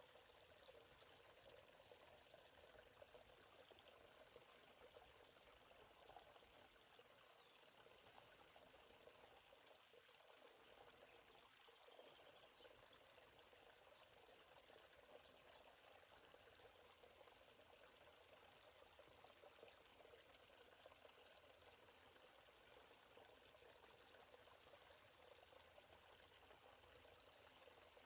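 Steady, faint, high-pitched chorus of insects such as crickets, with a soft haze of running stream water beneath it.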